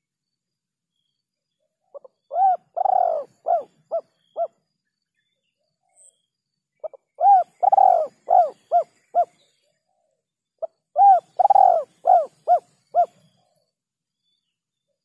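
Spotted dove (tekukur) cooing: three cooing phrases a few seconds apart, each a quick run of about five or six notes.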